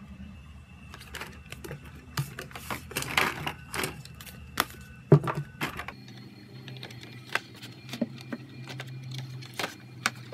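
Hard-cover album photobooks being handled and opened: an irregular run of taps, clicks and paper or card rustles, with the loudest knock about five seconds in.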